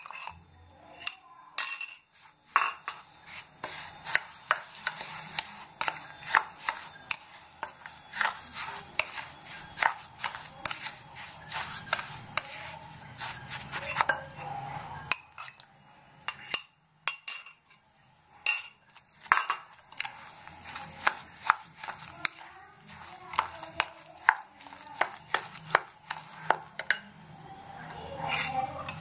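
Spatula stirring thick semolina and curd batter in a glass bowl: irregular clicks and knocks against the glass, a few a second, with soft scraping and a couple of short pauses.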